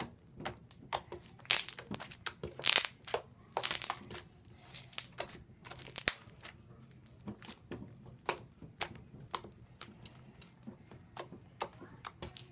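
Slime being squished and worked by hand for ASMR, making irregular crackling and popping sounds, busiest and loudest in the first few seconds.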